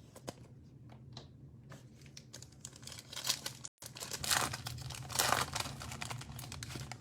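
A trading card pack's wrapper being torn open and crinkled, faint at first and crinkling more densely from about three seconds in.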